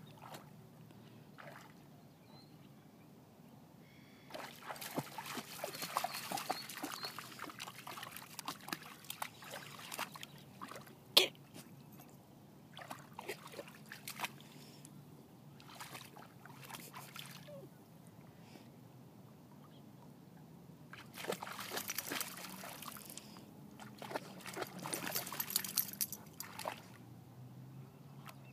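A black Labrador wading and pawing in shallow water, splashing and sloshing in two long spells, with one sharp knock, the loudest sound, about eleven seconds in.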